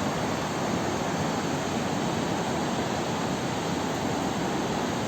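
River water rushing steadily, an even unbroken roar of flowing water.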